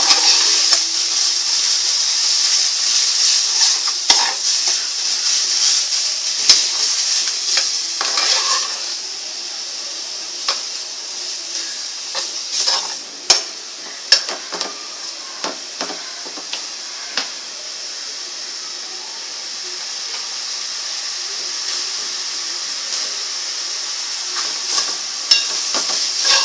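Coconut, coriander and ginger-garlic masala paste sizzling in hot oil in a pan, with a spoon scraping and clicking against the pan as it is stirred. The sizzle is loudest at first and settles lower about halfway through, with a few sharper spoon knocks soon after.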